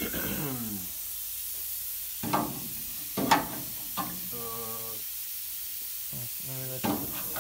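Short steel tube being handled and knocked against a steel frame rail during a test fit: a few sharp clanks around the middle, over a steady hiss.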